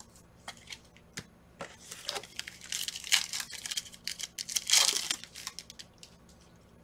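A foil pack of Panini Prizm football cards being torn open: crinkling and tearing of the wrapper in irregular bursts, loudest about five seconds in, then a few light clicks as the cards are handled.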